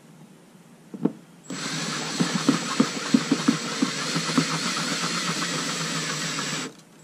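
Milwaukee cordless drill boring into the plastic hull of a small boat: after a click about a second in, the drill runs steadily for about five seconds with scattered ticks as the bit cuts, then stops.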